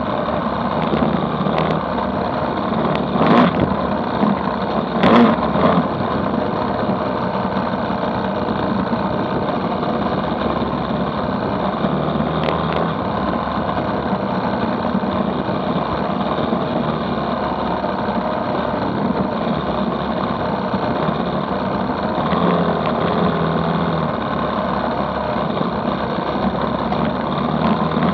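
Engine of the chase vehicle running steadily at cruising speed along a dirt track, mixed with wind and rough-road rumble. Sharp knocks come about 3 and 5 seconds in.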